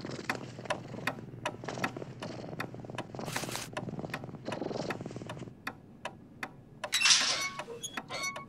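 Pendulum wall clock ticking steadily, about three ticks a second, over a low sound that swells and fades a few times. A brief louder rustle about seven seconds in.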